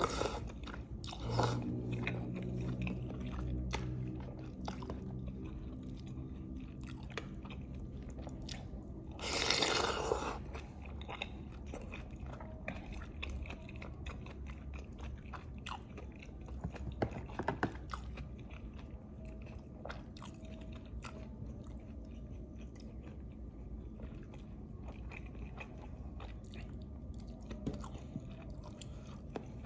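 Close-miked mouth sounds of eating lontong, rice cake in a saucy vegetable dish with green chili: steady chewing and biting with small crunches and wet clicks. A brief louder rush of noise comes about ten seconds in.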